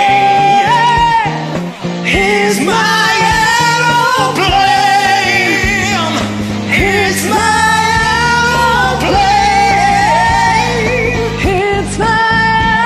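A man and a woman singing a pop-rock song together over a karaoke backing track, with long held notes.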